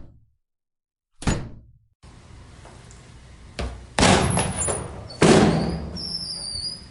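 A series of door slams. One clean slam comes about a second in; then, over a steady background hiss, a lighter knock is followed by two heavy slams, each ringing on for about a second.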